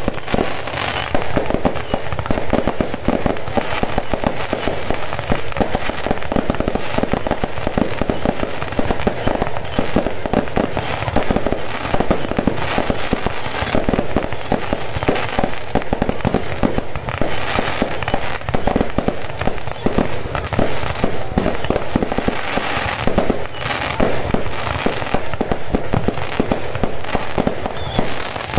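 Fireworks going off without pause: a dense, rapid stream of bangs and crackling.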